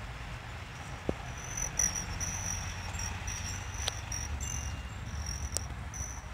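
High-pitched buzzing trill, insect-like, steady with brief breaks, starting about a second and a half in, with a few soft ticks over a low background rumble.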